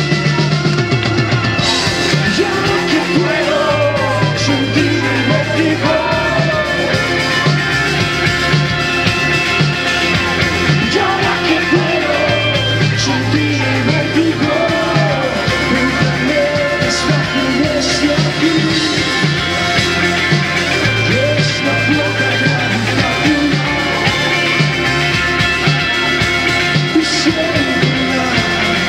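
Live band playing a rock-style song: a singer's voice over keyboards, electric guitar, drums and a bass line that moves in steady steps.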